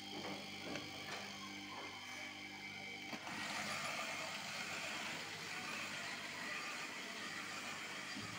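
Remote-controlled electric sprayer hose reel running: a steady hum with a few light clicks, then about three seconds in a louder, steady rushing noise sets in and holds.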